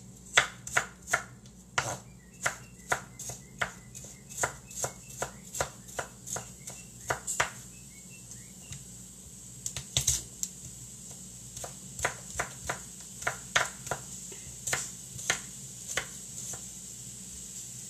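Chef's knife chopping garlic cloves on a wooden cutting board: a run of sharp knocks, about two or three a second, with a short lull near the middle before the chopping picks up again.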